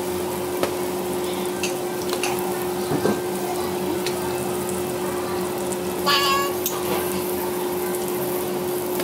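Food sizzling in a pan at the table as a steady hiss, under a constant hum, with light clicks of cutlery. About six seconds in comes a short, high cry.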